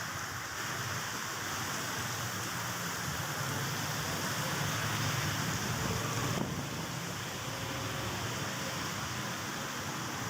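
Heavy monsoon rain pouring down in a dense, even hiss. A low rumble swells in the middle and eases about six seconds in.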